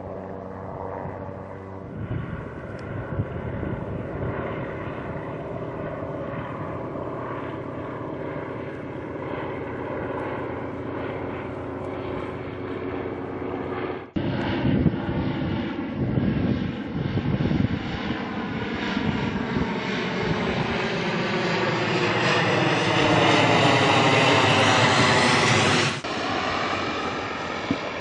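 Propeller-driven piston aircraft engine running, in two stretches joined by an abrupt cut about halfway through. In the second stretch the aircraft passes close, its drone sliding in pitch as it gets louder, until it cuts off suddenly near the end.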